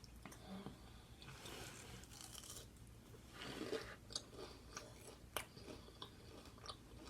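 A person chewing a bite of a bacon, egg and cheese sandwich with onion close to the microphone: soft, quiet crunching with a few sharp mouth clicks in the second half.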